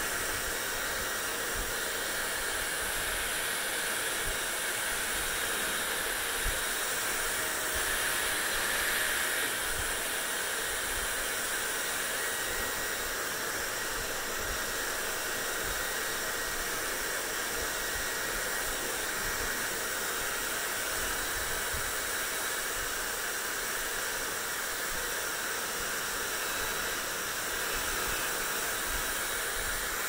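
Handheld hair dryer blowing steadily while drying long hair: a constant rushing hiss with a faint high steady whine.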